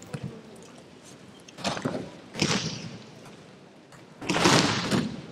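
Thumps and swishes of an aikido partner being thrown and taking breakfalls on tatami mats, with hakama cloth rustling. Two short ones come about two seconds in, and a longer, louder one comes near the end.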